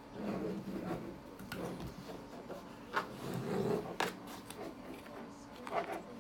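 Duracraft Chillout table fan running with a steady motor hum, broken by several short sharp clicks, the loudest about three and four seconds in.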